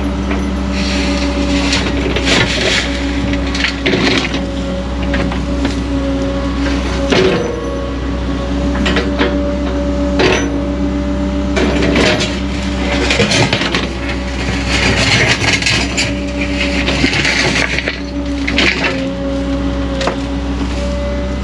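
Diesel engine of a digging machine running steadily while its steel bucket scrapes and clanks against rock and gravel, with repeated sharp knocks and bursts of grinding.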